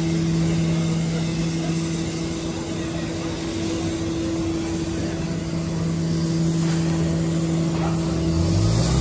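A vehicle driving along: a steady engine drone over road noise, with a lower engine note rising near the end.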